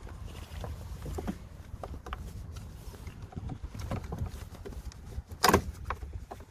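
Hands and tools working on the air intake at the MAF sensor and its hose clamps: scattered light clicks and taps over a low rumble, with one sharp knock about five and a half seconds in.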